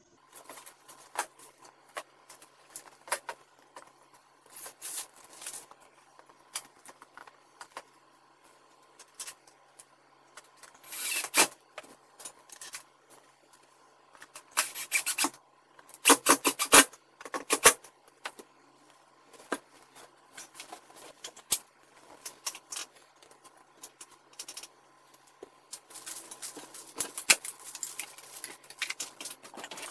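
Intermittent clicks, scrapes and rattles of hand tools and hard plastic as a pickup's third brake light housing is fitted and bolted onto the cab roof, with louder clusters of clicks in the middle. Near the end comes a denser stretch of crinkly handling noise.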